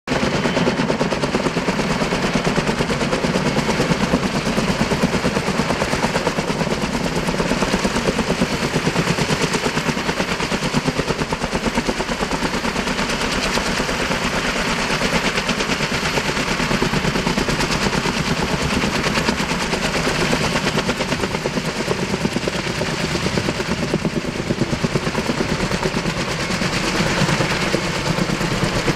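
Helicopter rotor chop, a steady rapid beat of the blades, as the helicopter works over the trees with a long-line load.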